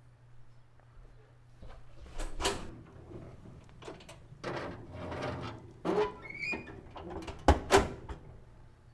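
Oven door opening, a cake pan sliding onto the oven rack, and the door shutting with a sharp bang about three-quarters of the way through.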